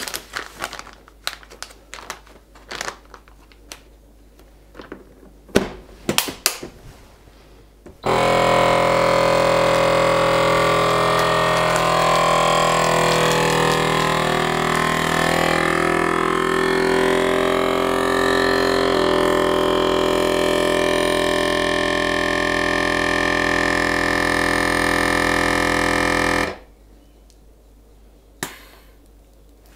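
Clicks and plastic-bag handling as a bag is set into a Solis vacuum sealer. About eight seconds in, the sealer's vacuum pump starts with a loud, steady hum, drawing the air out of the bag for about eighteen seconds, and then stops abruptly.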